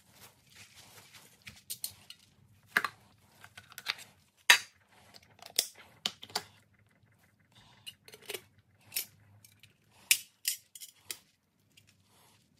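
Irregular sharp clicks and light knocks of an H4 halogen bulb and a Porsche 968 headlight reflector being handled and fitted together, about a dozen spread out with quiet gaps.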